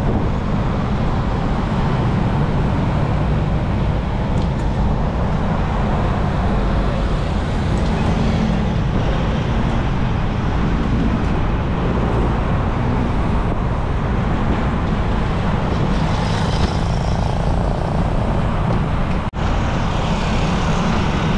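Steady wind and road noise on a bicycle-mounted camera moving through city traffic, with cars and motorcycles passing close by. The sound cuts out for an instant near the end.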